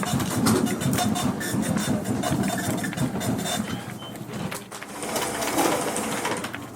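Office machine of the printer or fax kind running, a steady mechanical churn with a dense patter of clicks and short high blips.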